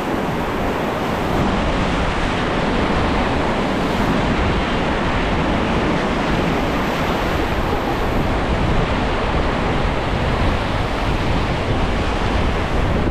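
Rushing white water of river rapids, a steady loud roar of churning water, with wind buffeting the microphone.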